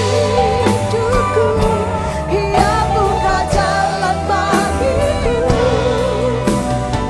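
A worship band playing a Christian worship song, with sung vocals carrying a wavering melody over a steady drum beat.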